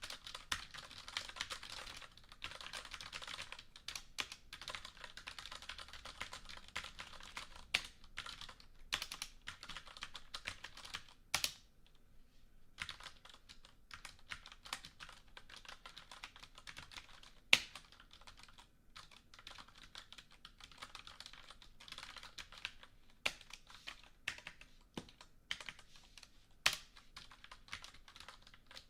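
Typing on a computer keyboard: quick runs of key clicks, with a brief pause about twelve seconds in and a few louder single key strikes.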